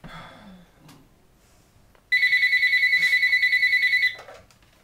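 Desk telephone ringing: a single electronic trilling ring with two steady high tones, starting about two seconds in and lasting about two seconds.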